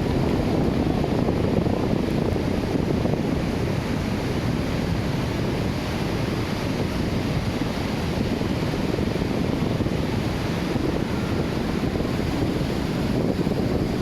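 Wind buffeting the microphone, a steady low rumbling rush with no let-up.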